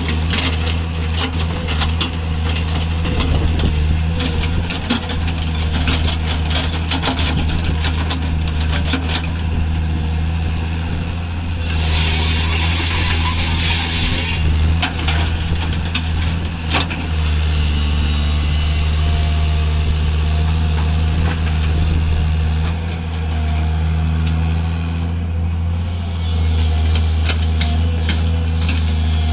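Tata Hitachi EX130 crawler excavator's diesel engine running steadily, with many sharp knocks and clanks of the machine working on gravel in the first several seconds. A loud hiss comes about twelve seconds in and lasts a couple of seconds. The engine grows louder from about seventeen seconds in as the machine works under load.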